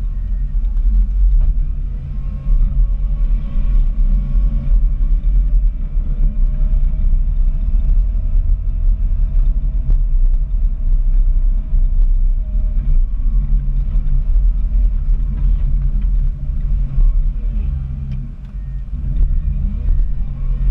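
Komatsu WA270 wheel loader running while pushing snow with a sectional snow pusher: a loud, steady low engine rumble. A faint whine holds for several seconds in the middle, rising slightly in pitch.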